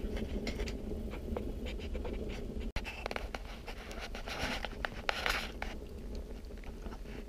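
Dry wood burning in a homemade rocket stove, with scattered small pops and crackles over a steady low rumble. Two short scuffing noises come in the second half.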